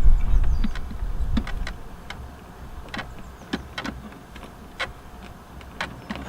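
Scattered clicks and knocks of hands handling a wiper motor assembly and its plug connector, with a low rumble through the first second and a half.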